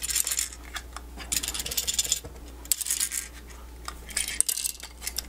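Plastic clicking, rattling and scraping as an opened outdoor smart plug housing is handled and turned over, its broken inner plastic pieces shifting and clattering. Short bouts of rubbing are broken by sharp little clicks.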